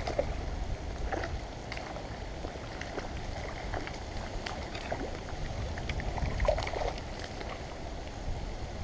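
A hooked trout thrashing and splashing at the water's surface, in scattered short splashes with a louder flurry about six and a half seconds in, over a steady low rumble.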